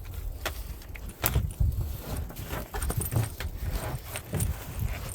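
Handling noise of small items in an emergency kit being moved about and set down: scattered sharp clicks and soft knocks at irregular intervals.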